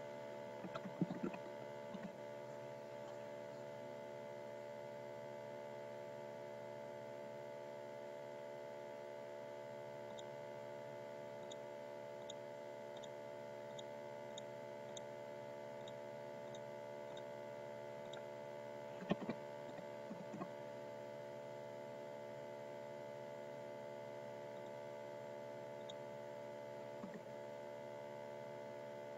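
Faint steady electrical hum made of several even tones, the background of the recording setup. A few soft clicks break it: about a second in, a couple around two-thirds of the way through, and one more near the end.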